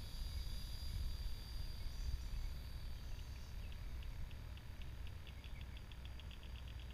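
Fly reel's click ratchet ticking as line is pulled off the spool: a few slow separate clicks about three seconds in, speeding up to a fast run near the end. A steady high insect drone and a low wind rumble run underneath.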